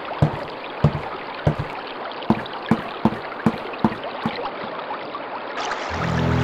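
Water trickling, with a run of drops plopping into water at roughly two a second that stops after about four seconds. Music comes in near the end.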